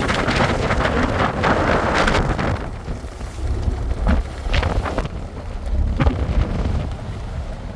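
Strong wind buffeting the microphone on a fishing boat in stormy weather at sea, with a constant low rumble. A rushing wash of noise fills the first three seconds, and a few short knocks follow later.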